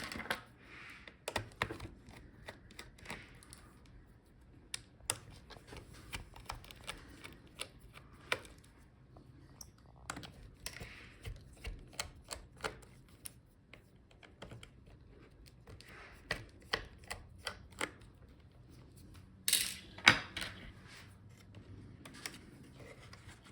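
Irregular light clicks and taps of small tools and plastic connectors being worked loose on a Dell G15 5515 laptop's motherboard, with a louder clatter near the end.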